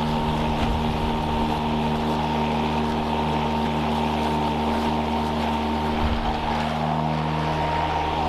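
Toro 60V Flex-Force 22-inch battery lawn mower running with its blade cutting grass into the bagger, a steady motor hum.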